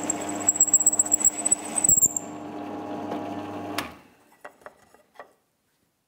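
Drill press running, its 10 mm bit boring through a hardwood strip, with a high whine and rough loud cutting peaks in the first two seconds. The machine sound stops abruptly a little under four seconds in, and a few light clicks follow.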